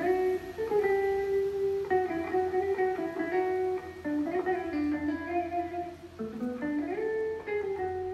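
Background music: a slow instrumental melody of held notes moving up and down in steps.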